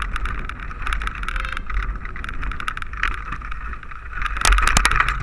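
Mountain bike rolling fast over a rooty dirt trail: a steady rattle and tyre noise, broken by sharp knocks as the wheels hit bumps, with the hardest knocks about four and a half seconds in.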